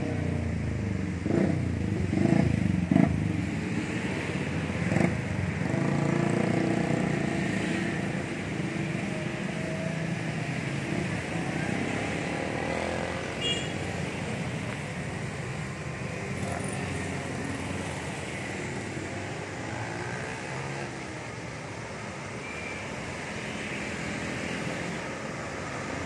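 Street traffic, mostly motorcycles, passing by with engine notes rising and falling as they go. A few sharp knocks sound within the first five seconds.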